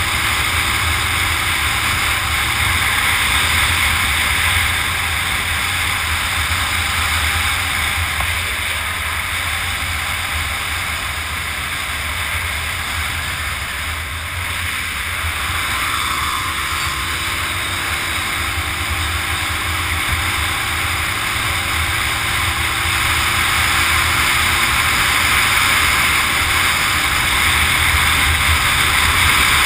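Motorcycle riding at speed: wind rushes over the microphone above a steady low engine drone. A faint engine note rises slowly through the second half.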